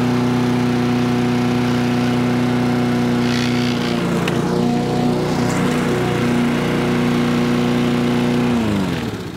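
Husqvarna walk-behind lawn mower's Honda engine running steadily at full speed while cutting grass, a speed the repairer thinks may be just a little quick. Near the end it is shut off, and its pitch falls as it winds down to a stop.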